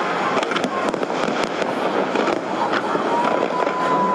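Fireworks going off continuously in a dense crackle of bangs and pops. A thin steady whistle comes in near the end.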